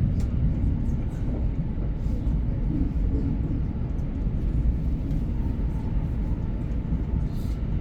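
Moving train heard as a steady low rumble, with a few faint clicks above it.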